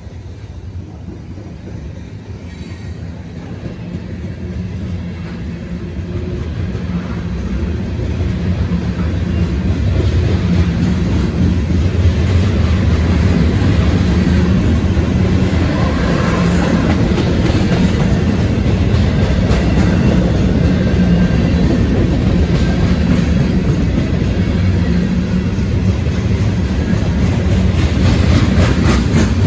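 CSX freight train's covered hopper cars rolling past close by: a steady rumble of steel wheels on rail that grows louder over the first ten seconds and then holds.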